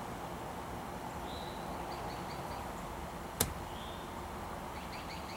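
Steady outdoor background noise with a couple of faint short chirps, likely birds, and one sharp click about three and a half seconds in.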